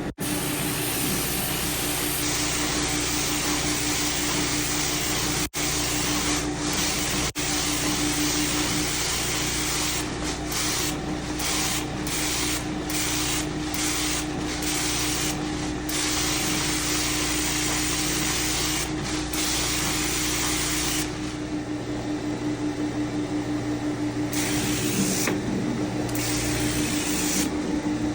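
Carpet cleaning extraction machine running: a steady vacuum hiss with a hum underneath. Around the middle the hiss dips and returns in a series of short strokes, as the wand is worked over the carpet.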